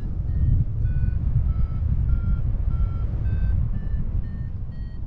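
Flight variometer beeping in short tones, two to three a second, the pitch dipping and then climbing again; steady beeping like this signals that the glider is climbing in lift. Wind rushes loudly over the microphone underneath.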